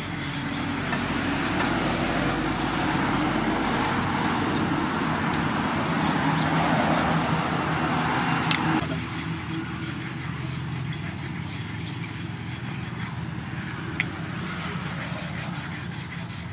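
Leaf-spring steel axe blade rubbed back and forth on a wet whetstone, a continuous rasping grind with a steady low hum underneath. The louder grinding cuts off suddenly about nine seconds in, leaving a fainter rubbing.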